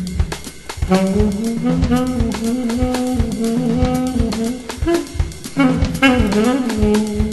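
Music: a saxophone playing a melody of held notes over a steady drum-kit beat, with a note that bends down and back up near the end.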